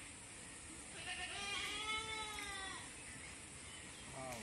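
An animal calling twice: one long call that rises and then falls in pitch, starting about a second in, and a short falling call near the end.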